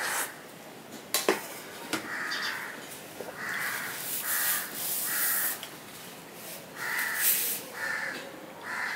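Crows cawing over and over in short harsh calls, about one every second. A sharp metallic knock about a second in as a steel bowl is set down on the table, and a tissue rustles against the mouth in the middle.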